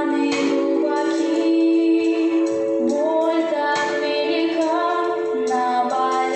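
High voices, most likely children, singing a slow melody with long held notes over backing music.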